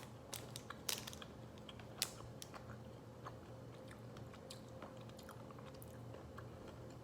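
Chewing a piece of decades-old MRE chewing gum whose coating has gone hard: a few sharp crunches in the first two seconds, then fainter chewing clicks. A faint steady hum runs underneath.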